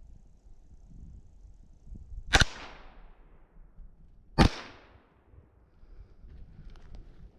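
Two shots from a Savage A17 semi-automatic .17 HMR rifle, about two seconds apart, each a sharp crack followed by a short echoing tail.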